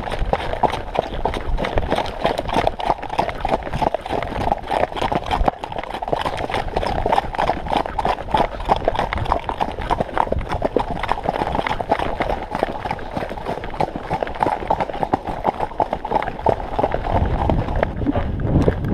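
Hoofbeats of ridden horses, a grey Andalusian and the horse ahead of it, moving at a brisk pace on a dirt forest track: a fast, steady run of clops and thuds.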